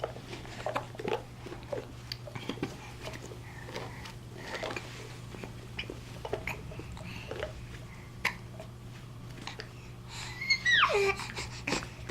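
Small hiccup-like sounds and soft vocal noises at irregular intervals, then a loud squeal that slides down steeply in pitch near the end.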